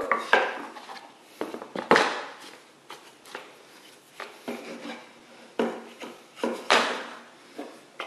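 Irregular knocks, clatters and rubbing as MDF discs, a plastic bucket lid and a PVC pipe are handled, set down on a metal saw table and fitted together; the loudest knocks come about two seconds in and near seven seconds.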